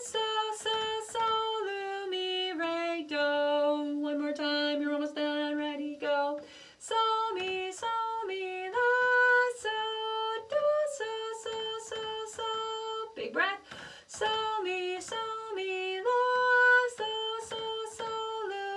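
A woman singing solfege syllables unaccompanied: a simple tune of held notes that step and skip up and down, with a couple of short breaks between phrases.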